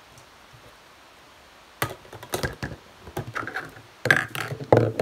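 Plastic cups and a plastic tub being handled on a tabletop: a run of sharp knocks, taps and clatters that starts about two seconds in and comes thicker near the end.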